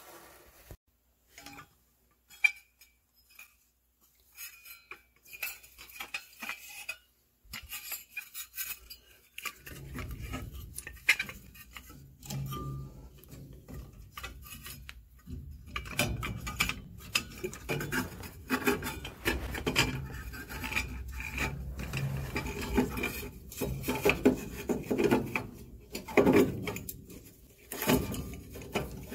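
Metal inducer motor housing being handled and worked into place inside a furnace cabinet. There are scattered metallic clinks and knocks at first, then from about ten seconds in a steady rubbing and scraping of metal against metal, broken by sharp clicks.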